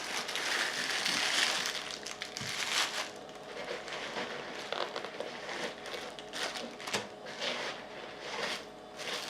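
Packaging being handled as items are pulled out of a box: rustling and crinkling of wrapping and padding, loudest in the first two seconds, then scattered shorter rustles and light knocks.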